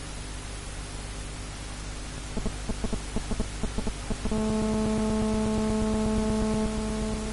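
A horn sounds a quick run of about ten short blasts, then one long held note of about three seconds, over a steady background hiss.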